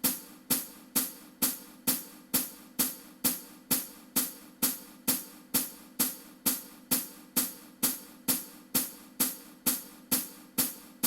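A steady practice beat: identical hi-hat-like clicks, about two a second, each dying away quickly, with no melody over them.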